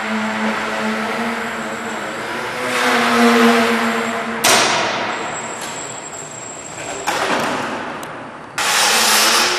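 Electric motor and propeller of an indoor foam aerobatic RC plane buzzing, its pitch and loudness moving with the throttle and swelling about three seconds in. A sudden loud rush of propeller noise comes near the end, with two shorter ones before it.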